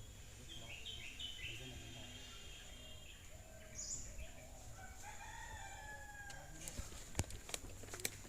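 A rooster crowing faintly in the background, one drawn-out call near the middle, with small birds chirping early on and a few sharp clicks near the end.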